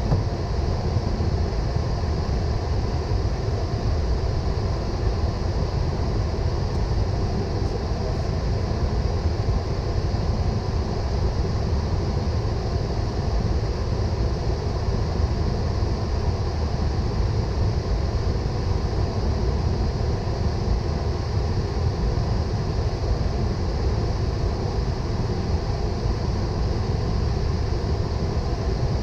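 Steady ambient noise inside a Boeing 777 cockpit: a continuous low rumble with a hiss of airflow over it and faint steady tones, unchanging throughout.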